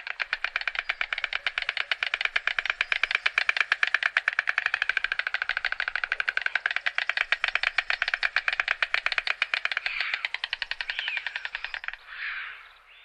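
White stork bill-clattering: a long, fast, steady rattle of bill strikes that stops about a second before the end, followed by a short, softer sound.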